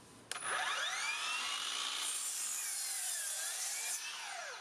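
Milwaukee M18 Fuel 10-inch cordless sliding miter saw with a brushless motor, cut into a piece of pine lumber. A short way in, the motor starts with a whine that rises quickly in pitch. The pitch dips as the blade works through the wood, then falls as the saw winds down near the end.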